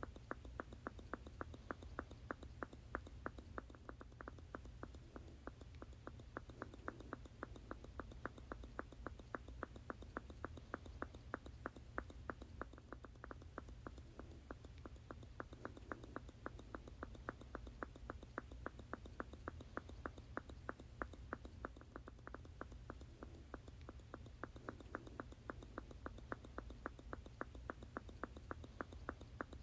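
A squeeze bottle squirting over and over in an even rhythm, about three short squirts a second.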